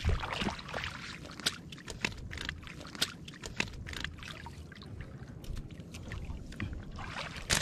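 Shallow seawater sloshing and splashing around a person's legs as they wade across a seagrass flat, with scattered sharp ticks and small splashes.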